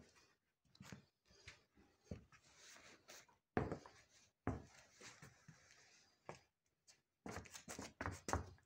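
Faint handling noise: irregular light rustles, scuffs and soft knocks, with a quicker run of them near the end.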